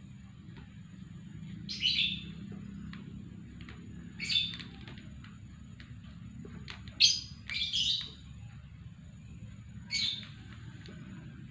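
Lovebird giving short, shrill chirps, five calls spaced a couple of seconds apart, over a thin, steady, high-pitched tone.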